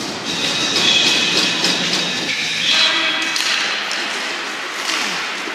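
Ice hockey play in an arena: skates scraping the ice and sticks and puck knocking, with scattered sharp clacks and thuds.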